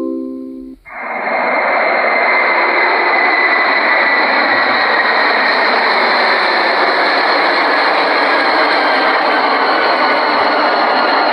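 Airliner jet engine noise heard from inside the cabin: a steady loud rushing sound with a high whine and a faint tone that slowly falls. It starts abruptly about a second in, just after the last notes of a chime melody fade out.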